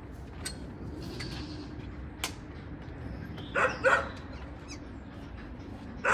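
A dog barking twice in quick succession about halfway through, over a steady low background noise, with a few faint clicks.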